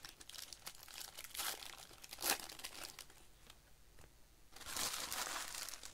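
Plastic baseball-card pack wrappers crinkling, along with cards being handled and sorted, as packs are opened. A sharp crackle comes a little over two seconds in, and a longer stretch of crinkling near the end.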